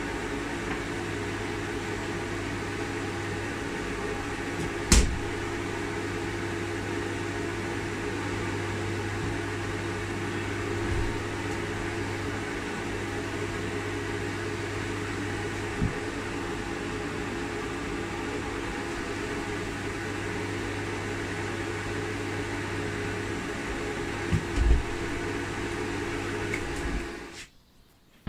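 Electric fan running with a steady mains hum, with a few brief knocks over it; the hum cuts off suddenly near the end.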